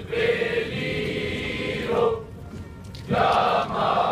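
A large group of voices singing or chanting in unison in Spanish. One long note is held for about two seconds, then after a short break the singing goes on in shorter syllables.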